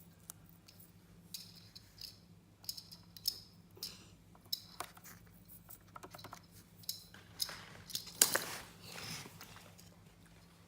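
Plastic toy track-set pieces being handled and fitted together: scattered light clicks and taps, with a denser scraping rattle about eight seconds in.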